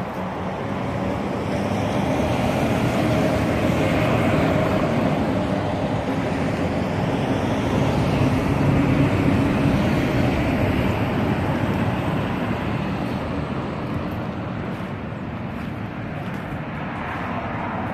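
Steady motor-vehicle engine noise that swells to a peak about halfway through and then eases off.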